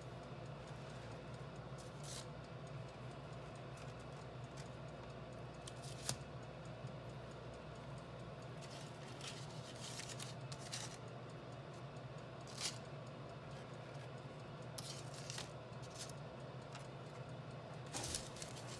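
Scattered short clicks and scrapes of kitchen utensils handling food, over a steady low hum.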